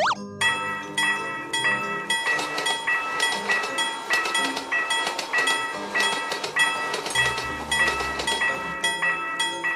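Cartoon sound effect of a Japanese level-crossing warning bell ringing repeatedly, about two dings a second, over the noise of a passing train. It opens with a short rising swoop.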